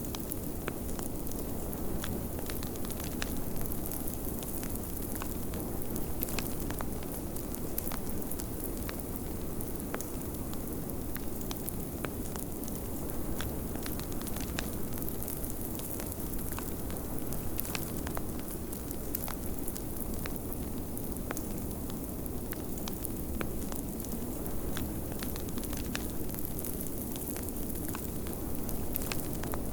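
Wood fire crackling, with frequent sharp pops, over a steady low rumble of blizzard wind.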